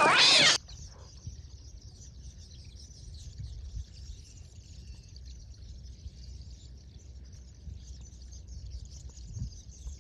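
Faint, continuous high twittering and chirping of many birds over a low steady rumble of wind or water. A loud, dense sound stops abruptly about half a second in.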